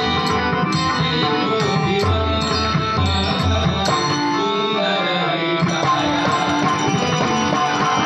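Marathi bhajan music for an abhang: sustained pitched melody over deep pakhawaj and tabla strokes, with small brass hand cymbals (taal) clicking in rhythm. The deep drum strokes drop out for a moment about halfway through, then return.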